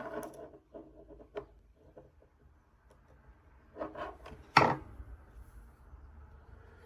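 Small screwdriver and laptop-part handling sounds: faint scattered clicks and rubbing, with one sharp knock about four and a half seconds in.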